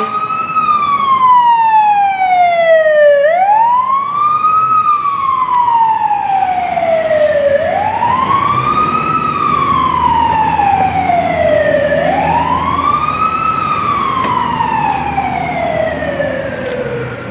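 Fire truck siren wailing in slow cycles of about four seconds: a quick rise, then a long falling glide, four times over, above low traffic noise.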